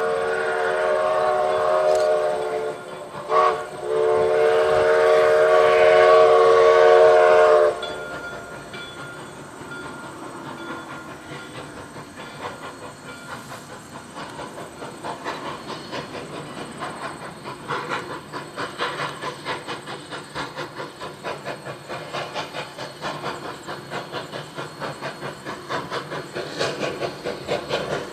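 Steam locomotive #136, built by Rogers in 1883, sounds its chime steam whistle: a long blast, a short toot, then another long blast. It then runs with a hissing, rhythmic beat that gradually quickens as the train gathers speed.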